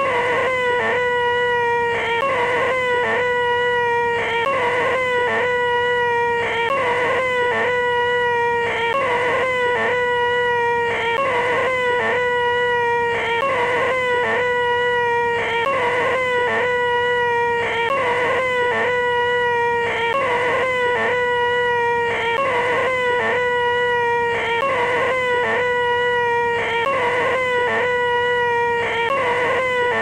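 A man's loud, nasal, high-pitched 'eeeeh' shriek, held on one steady pitch. This is the deliberately grating 'most annoying sound in the world'. It repeats with a short break about once a second.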